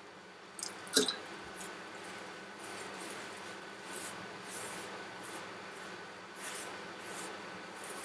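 Hands kneading soft flour dough in a bowl, a series of soft, short squishing sounds, with one sharp knock about a second in.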